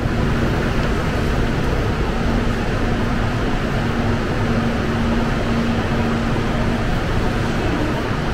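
Steady mechanical rumble of a subway station, with a constant low hum.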